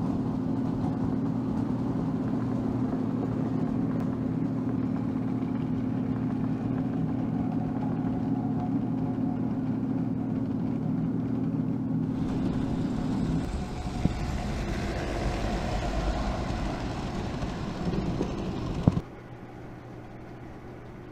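1940 American Flyer 559 K5 toy steam locomotive and its passenger coaches running on the track: a steady electric hum, then a louder rolling rumble and clatter of the wheels about two-thirds of the way in, with a sharp click. Near the end the sound drops suddenly to a fainter steady hum.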